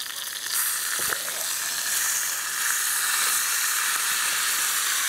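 Pork steaks sizzling over hot wood ashes as homemade wine is poured onto them: a steady hiss that swells about half a second in and holds, with a few faint ticks.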